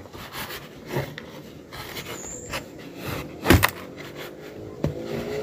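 A knife stabbing and scraping into a plastic piggy bank: scratchy scraping broken by several sharp knocks, the loudest a double knock about three and a half seconds in.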